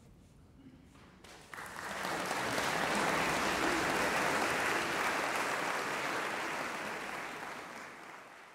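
Audience applauding after a soprano's song, starting about a second and a half in, holding steady, then fading away near the end.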